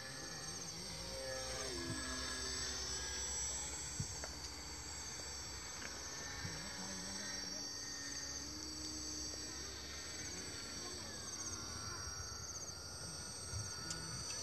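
Steady high-pitched chirring of insects, with the faint whine of a small model seaplane's motor passing overhead, its pitch slowly falling near the end.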